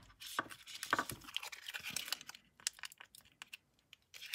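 Crinkling, rustling and scattered light clicks of hands handling the removed, adhesive-smeared MacBook Pro battery cells, busiest in the first two seconds or so.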